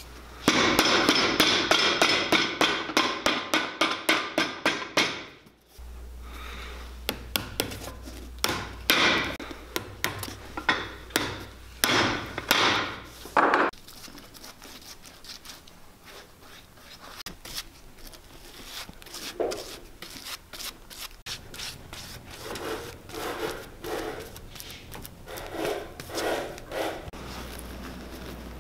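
Rubbing and brushing on the leather bottom of a cowboy boot: a glue brush spreading glue and hands pressing a new leather shank cover down. Quick scratchy strokes stop suddenly about six seconds in, followed by slower, scattered strokes.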